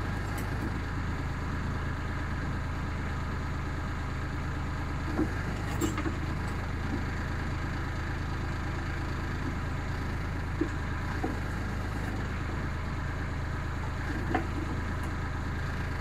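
Branson compact tractor's diesel engine running steadily while it powers the rear backhoe, with a few short knocks as the bucket works the frozen gravel.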